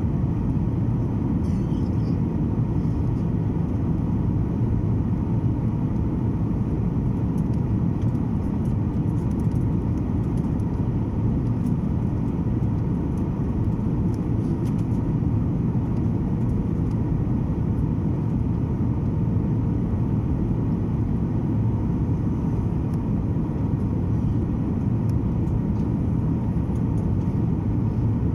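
Steady cabin drone of a Boeing 737 airliner in flight: engine and airflow noise, deep and even, with a faint steady hum.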